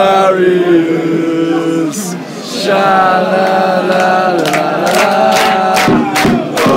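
Football supporters singing a chant together in the stand, joined by hand-clapping in the second half.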